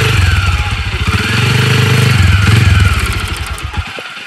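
Can-Am DS quad bike engine running and revving, rising and falling in pitch in two surges, then dying away shortly before the end.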